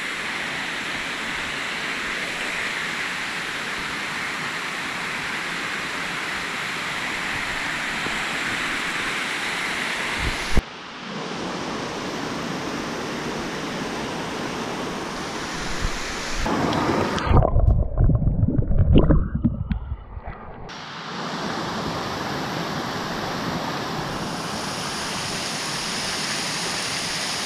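Waterfall rushing: a steady hiss of falling water. About two-thirds of the way through, a few seconds of loud, low rumbling buffeting drown it out, then the rush comes back.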